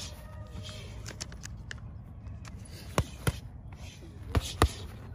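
Gloved punches and kicks landing on focus mitts: two pairs of sharp smacks, one pair about three seconds in and another about a second later, the last the loudest.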